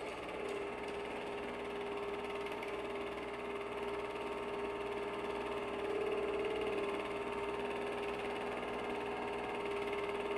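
A machine running steadily, giving a continuous drone with a strong hum.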